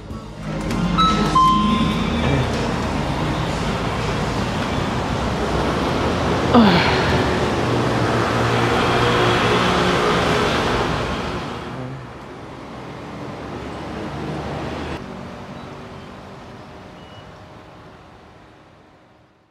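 City street traffic from cars and scooters, with one vehicle passing with a falling pitch about six and a half seconds in; the sound fades away over the last several seconds.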